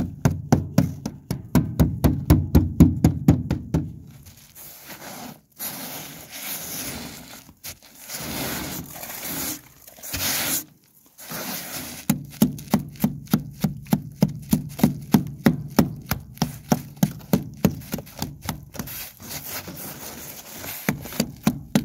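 Hand tool chipping freezing-spray ice off an aluminum boat's gunwale: a run of quick strikes, about four a second, then a stretch of scraping, then steady chipping again for the last ten seconds.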